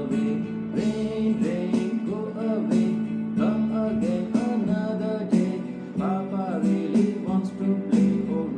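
Music: a simple children's rain song sung over instrumental accompaniment, with a steady low drone under the melody.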